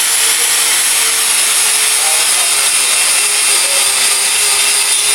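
Angle grinder working a steel plate: a steady grinding hiss with a high whine that drops slightly in pitch toward the end, as the disc takes load.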